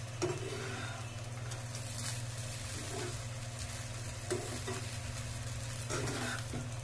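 Spatula stirring and scraping poha around a nonstick frying pan, with a few separate scraping strokes over a faint sizzle of frying. A steady low hum runs underneath.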